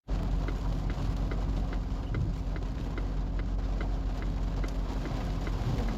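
Heavy rain falling, with a low steady rumble under it and a faint regular ticking about two and a half times a second.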